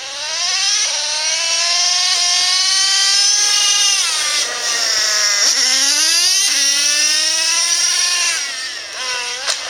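Electric RC car's motor whining as it accelerates, its pitch rising, dropping back about halfway, then rising again and falling near the end.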